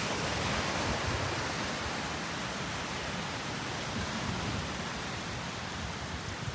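Small surf waves washing onto a sandy beach: a steady, even hiss, with light wind gusting on the microphone.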